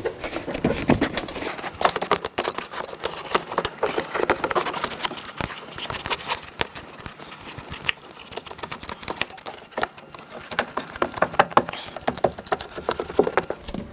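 Plastic door vapor barrier crinkling and being pressed by hand onto butyl tape on the inner door, with irregular light taps and crackles.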